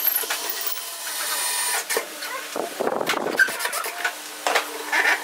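Cordless drill driving a long bolt into wood, its motor running for about two seconds and then cutting off sharply. After that come scattered knocks and rubbing from handling the wooden work.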